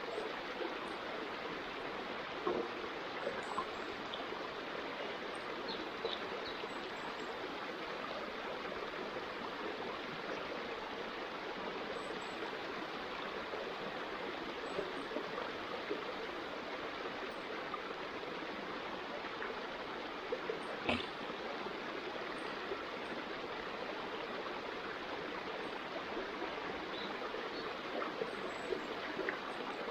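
Steady rush of a flowing stream, with a few faint scattered clicks.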